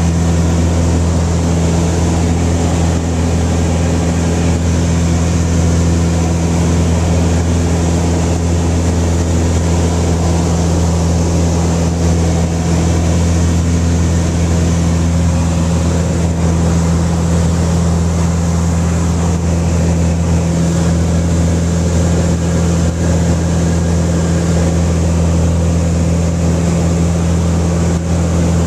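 A small propeller plane's engine and propeller droning steadily in flight, heard from inside the cockpit: a constant deep hum under an even rush of air noise.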